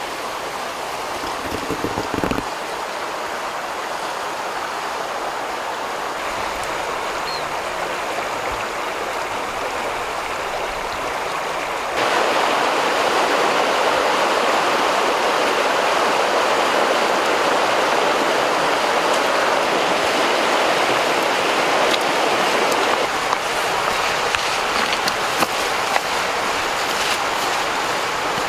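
Shallow river running over stones: a steady rush of water that gets louder about halfway through. A few brief knocks stand out over it.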